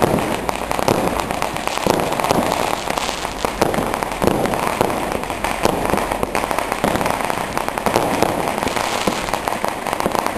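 Firecrackers going off in a dense, unbroken run of sharp cracks and bangs.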